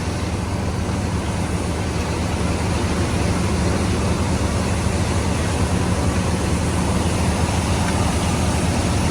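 Heavy diesel engine of a logging machine running steadily at a constant speed, with a steady rush of noise over its low hum.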